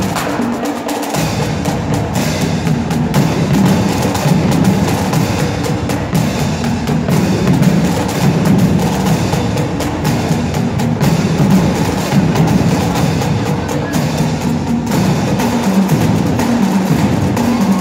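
A marching drum line playing together: snare drums and bass drums beating a loud, dense, continuous rhythm, with cymbal crashes mixed in.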